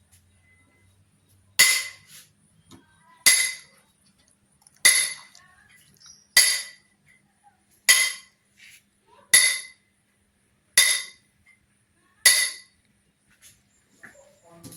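A metal vessel struck eight times, evenly about a second and a half apart, each strike ringing briefly with a metallic clink. The count of strikes is the number the listener is meant to identify.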